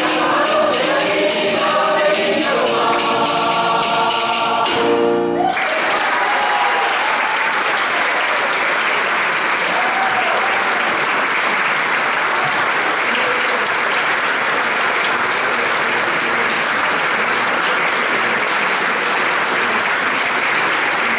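Mixed choir singing the end of a Galician foliada, closing on a held chord that cuts off about five seconds in. Steady audience applause follows.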